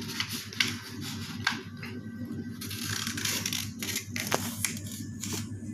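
A sheet of paper being folded by hand: rustling and short crackles as fingers smooth and press the creases, with a longer stretch of rustling about three seconds in.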